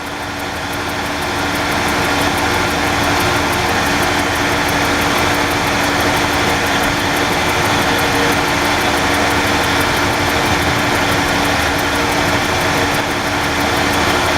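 An engine running steadily, growing a little louder over the first two seconds and then holding even.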